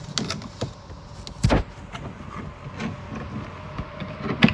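Plastic interior trim cover on a Toyota Land Cruiser 100 series lift gate being lifted and slid out: a string of clicks and knocks, the loudest about a second and a half in and another near the end.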